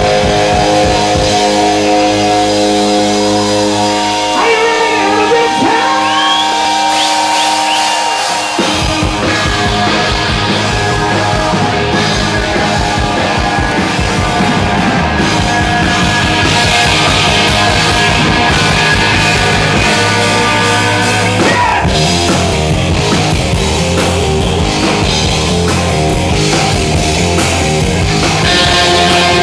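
Live rock band playing with electric guitars. The bass and drums drop out for a few seconds under held guitar chords, then come back in about nine seconds in and the full band plays on.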